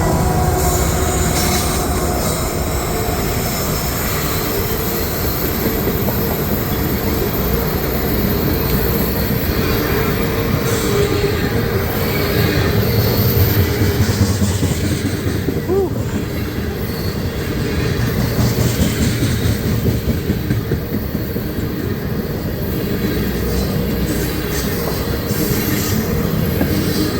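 Loaded ethanol tank cars of a long freight train rolling past, a continuous rumble and clatter of steel wheels on rail, with a thin squeal of wheels now and then.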